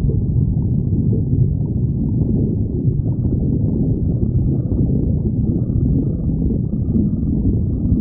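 A person's stomach growling: a continuous low rumble with no breaks, all of it deep in pitch.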